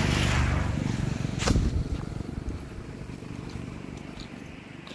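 A motor vehicle passing close by, at its loudest as the sound begins and fading away over the next few seconds. One sharp knock about a second and a half in.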